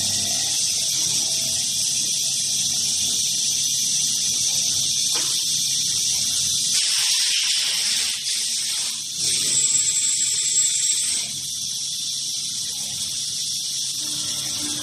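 CNC machine running with a steady high hiss, as of coolant spray or an air blast, over a low hum. A thin high-pitched whine of cutting joins in about nine seconds in and stops about two seconds later.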